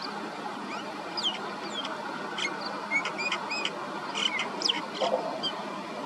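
Common myna calling: a varied run of short whistles, clicks and chirps, some sliding in pitch, starting about a second in and ending shortly before the end, over steady background noise.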